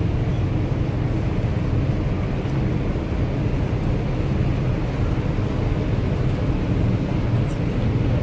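Steady low rumble of a nearby Tirrenia car ferry's engines as it gets under way to leave the harbour.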